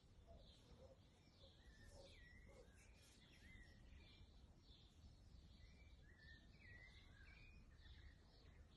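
Faint birds chirping outdoors: scattered short chirps and quick gliding notes, over a low steady background rumble.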